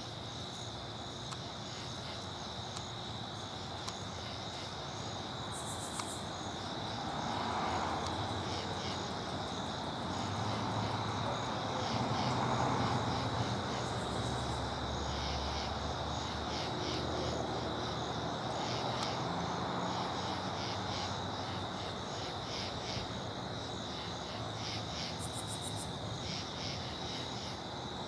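Crickets chirping steadily in a fast, continuous pulse, with a faint low rumble that swells and fades around the middle.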